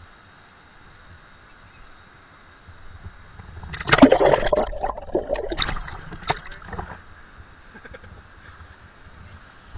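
A faint steady rush of cascading water, then about four seconds in loud splashing and gurgling close against the camera as it dips into the pool at the foot of the falls, dying away over the next few seconds.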